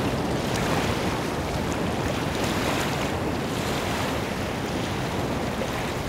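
Sea water rushing and churning around humpback whales lunge-feeding at the surface, their open mouths taking in water. A steady wash of water noise.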